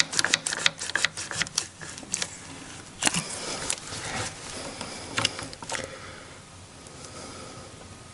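Irwin Quick-Grip one-handed bar clamps being tightened by squeezing their triggers: a fast run of clicks for about the first two seconds, then a few single clicks, before it grows quiet about six seconds in. The clamps are set lightly on a crack freshly filled with epoxy.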